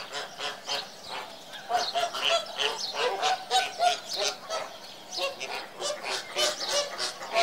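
A flock of flamingos calling, many short honks overlapping in quick succession.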